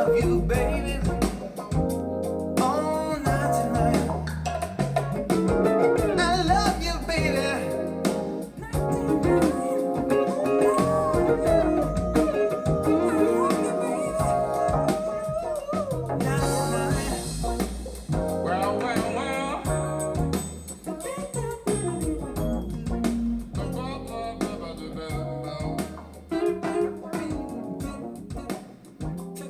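Jazz-blues song with guitar, bass, drums and vocal lines, played back through Dynaudio Contour 1.3 SE bookshelf loudspeakers.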